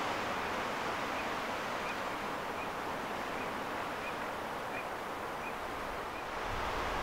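Outdoor ambience: a steady rushing hiss, with a faint short high peep repeated evenly about every 0.7 seconds, eight or so times.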